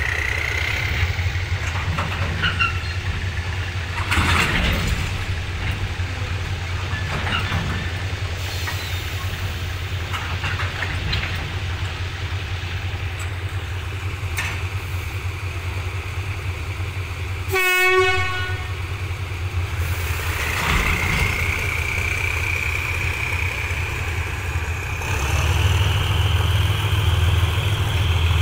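Container flat wagons rolling slowly past under shunting, over the steady low drone of a diesel locomotive's engine. A thin rising wheel squeal comes at the start and again from about two-thirds through, and a short horn toot sounds a little past the middle.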